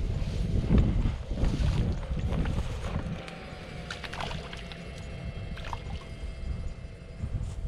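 Water sloshing and splashing, loudest in the first two seconds and quieter after, with a few short knocks and a faint steady high whine in the second half.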